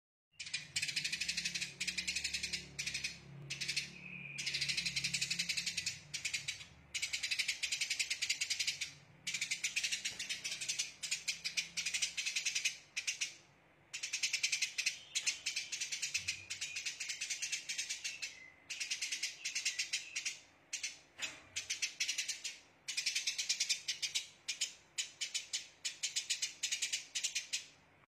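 Eurasian tree sparrow chattering in dense, rapid-fire bursts of high chirps, each burst lasting a second or a few seconds with short breaks between.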